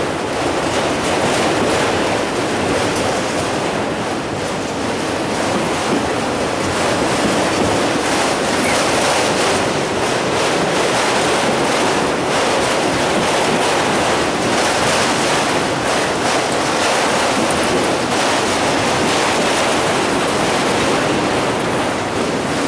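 A freight train of autorack cars rolling past: a steady, loud rush and rumble of steel wheels on rail.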